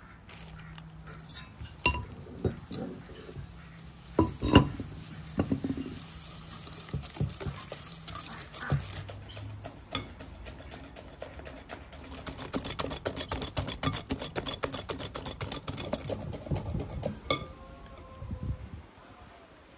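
Wire whisk beating egg yolks and sugar in a glass bowl, clinking against the glass. First come scattered clinks and knocks, then several seconds of rapid, even whisking strokes that stop near the end.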